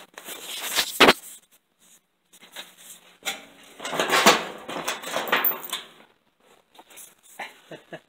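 Leather work jacket rustling and brushing right by the microphone in uneven bursts, the longest a few seconds in, with a few light clicks and knocks near the end.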